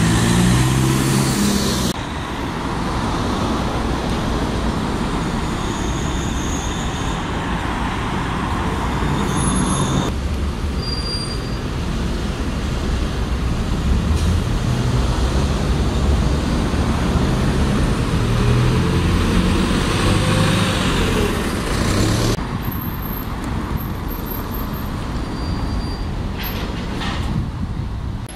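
Diesel single-deck buses pulling away from a bus stop and passing, with the engine rumbling and general street traffic around them. The sound changes abruptly a few times.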